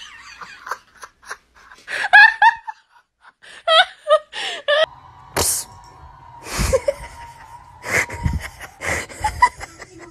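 People laughing in bursts of high-pitched laughter, then several short, loud outbursts over a faint steady hum.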